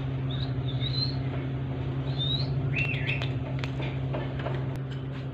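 Parakeet giving a few short, high chirps and whistles, one sliding up and down, over a steady low hum, with a few light taps later on.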